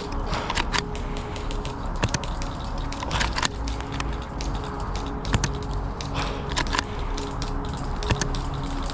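Background music with steady held notes, over many irregular sharp cracks and clicks.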